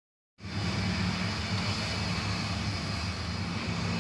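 A vehicle engine running steadily, a constant low drone with hiss above it; the sound cuts in abruptly just under half a second in.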